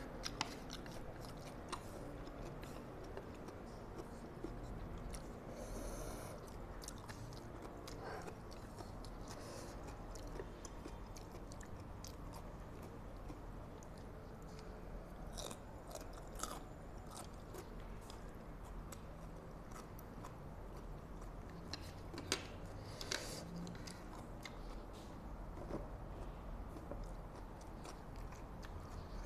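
A person chewing and biting mouthfuls of Mie Sedaap Korean-style spicy chicken mi goreng instant noodles, heard close on a clip-on microphone. A few sharp clicks are scattered through, over a low steady hum.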